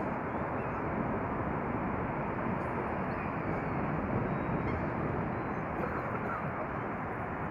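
Steady, even background noise of distant city traffic, with no music, cutting off suddenly at the end.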